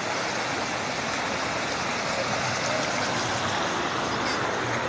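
Floodwater rushing fast along a flooded street, a steady noisy rush of water.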